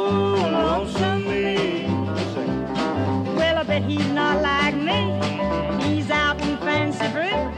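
Country band music in an instrumental passage: a bass note on every beat, about two a second, under a lead line of bending notes.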